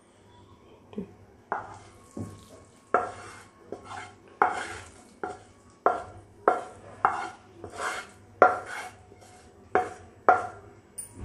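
Wooden spatula scraping and knocking noodles out of a non-stick pan onto a ceramic plate: a run of sharp knocks, about two a second, each with a brief ring, starting about a second and a half in.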